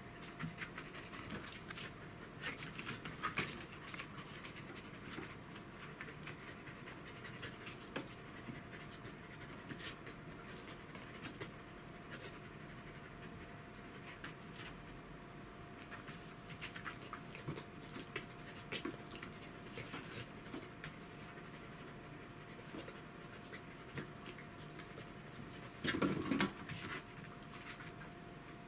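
A Pembroke Welsh corgi panting steadily, with scattered light clicks and taps and a faint steady hum underneath. A short louder burst of sound breaks in near the end.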